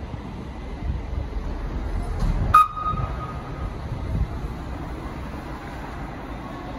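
Matterhorn Gotthard Bahn Tea 2/2 electric shunting locomotive rolling slowly over the tracks with a low rumble. About two and a half seconds in there is a single sharp metallic clank that rings briefly.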